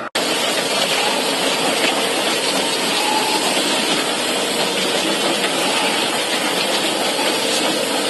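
Heavy machinery running with a steady, dense rushing noise, which starts abruptly just after the beginning.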